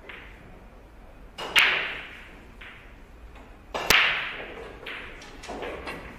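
A pool shot: the cue tip strikes the cue ball, which cracks hard into an object ball near four seconds in, the shot played with a little too much power. An equally sharp double clack of balls comes about a second and a half in, and a few lighter ball clicks follow the shot.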